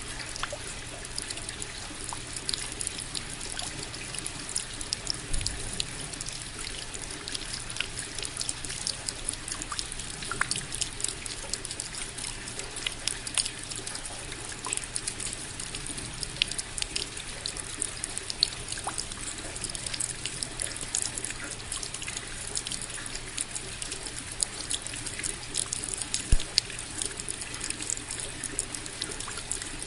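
Steady rain falling, a constant hiss dotted with many small drop ticks and now and then a louder drip.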